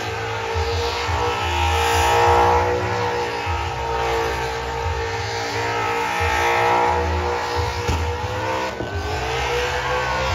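Car engine held at high revs during a burnout, its pitch wavering; about eight seconds in the revs drop sharply and climb back.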